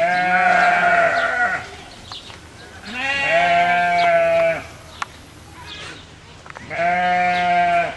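A farm animal bleating: three long, drawn-out calls, each about a second and a half and steady in pitch, with short pauses between them.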